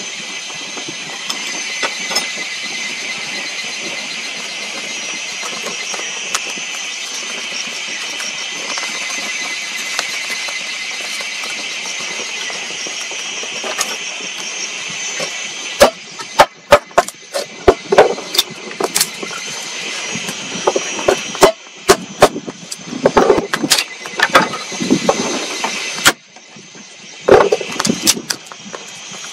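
Small kindling fire of feather sticks and tinder catching in a stone fire pit, with sharp crackles and snaps from about halfway in, over a steady high-pitched hiss.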